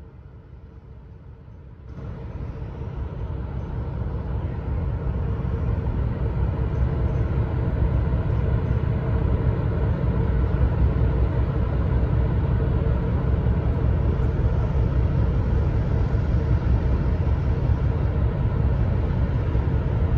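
Steady low machinery rumble with a constant hum from the moored cruise ship Asuka II, whose funnel is exhausting while it runs at the berth; the rumble jumps louder about two seconds in and then holds.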